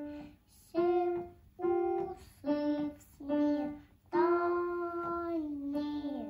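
A young child singing a simple song in Russian in short separate notes while playing the melody on a digital piano, with one longer held note in the middle.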